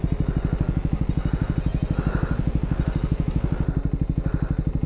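Motorcycle engine idling steadily: an even, rapid putter of about fifteen beats a second.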